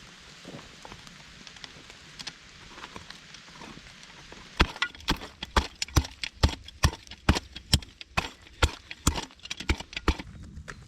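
A steady series of sharp knocks, a little over two a second, starting a little under halfway in, after a stretch of faint scattered clicks.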